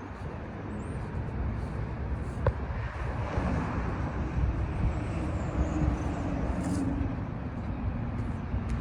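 Road traffic: a vehicle passes, its noise swelling about a third of the way in and fading near the end, over a steady low rumble.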